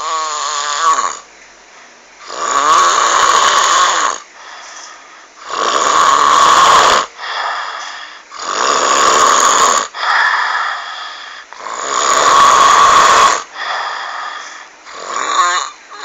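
A sleeper snoring loudly: four long, rasping snores about three seconds apart, with quieter breaths between them.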